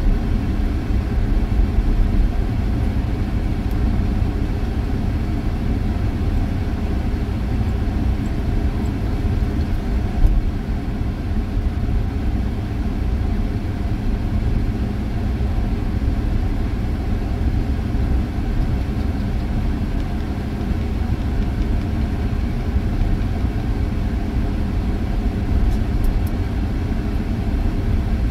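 Road noise inside a vehicle driving on a sand beach: a steady low rumble of engine and tyres, with one brief louder thud about ten seconds in.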